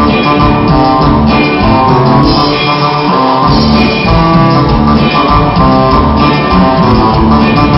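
Live band music from a cumbia and norteño group playing an instrumental passage, keyboards and drums over a steady, even beat.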